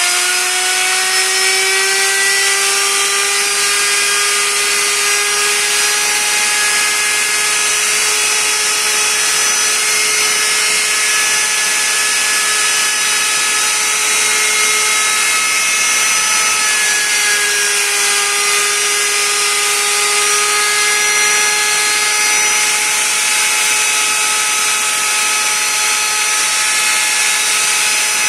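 Power saw cutting wood: a steady high motor whine over a hiss, rising slightly at the start and dipping in pitch briefly about halfway through.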